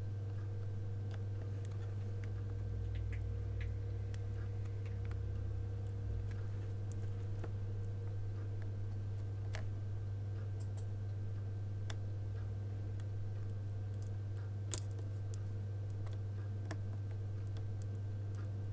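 Faint scattered ticks and clicks of a soldering iron and circuit board being handled while a component is desoldered, with one sharper click near fifteen seconds in, over a steady low hum.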